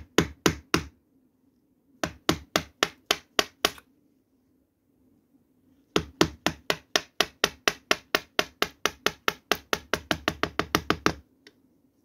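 Wooden mallet tapping a chisel into a thin piece of wood: rapid, sharp taps at about five a second, in a short burst at the start, a second run about two seconds in, and a long run from about six seconds in that speeds up toward its end.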